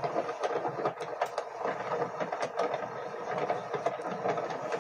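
Hail coming down hard in a thunderstorm: a dense, irregular clatter of small hits over a steady hiss.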